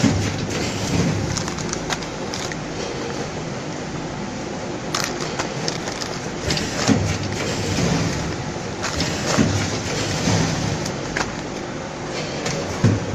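Steady running noise of factory packaging machinery, with irregular clicks and clatter and a few dull thumps, as filled plastic bags are handled around the weighing scale.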